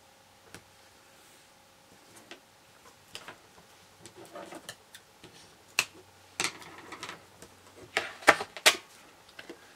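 Light rustling and clicking as a thin strip of adhesive tape is peeled from the edge of a paper card, then three sharp scissor snips through the card near the end.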